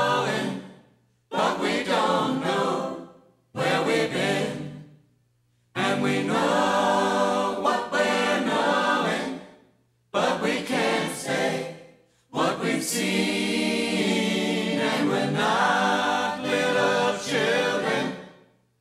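A choir singing a cappella as a soundtrack, in separate phrases that each fade out, with short silences between them.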